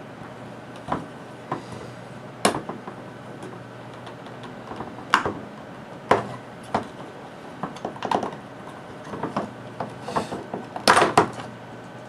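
Plastic housing of a Radsel CCU422 GSM alarm controller being handled and unclipped: scattered clicks and knocks of plastic parts, the loudest couple near the end.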